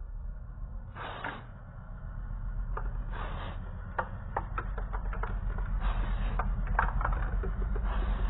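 Aerosol spray-paint can hissing in about four short bursts as paint is sprayed through a stencil. Scattered sharp clicks come between the bursts, over a steady low rumble.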